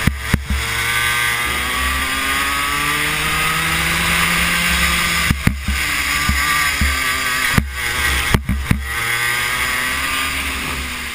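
Go-kart engine at full throttle, its pitch climbing steadily as the kart accelerates, with wind rumble on the onboard camera. The engine note breaks off briefly with sharp knocks a few times, about five and a half, seven and a half and eight and a half seconds in, then climbs again.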